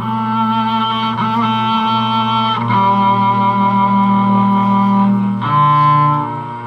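Cello music played slowly with the bow: long held notes ring over a low sustained note, the melody moving to a new note every second or two.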